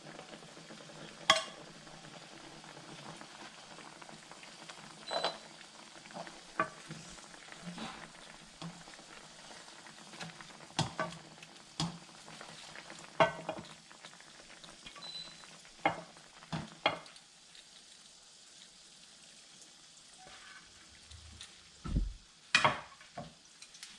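Sweet soy-and-Sprite cooking liquid bubbling in a pan as it cooks down into a sauce, a steady sizzle with scattered pops and clicks. It settles a little past the middle, and a few louder knocks come near the end.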